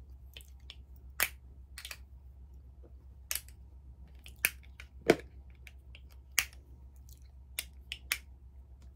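Irregular sharp clicks and taps, about a dozen, from small plastic makeup packaging being handled, over a faint steady low hum.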